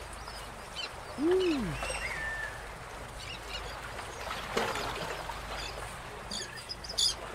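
Outdoor crowd ambience: low background chatter, a single short hum that rises and falls about a second in, and a few high bird chirps near the end.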